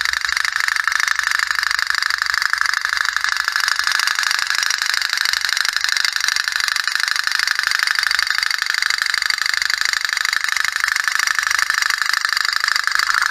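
Tin pop-pop (otok-otok) toy steam boat running on water: the wick-heated boiler's metal diaphragm pops in a rapid, steady ticking, the sign that the boiler is hot and pushing the boat along.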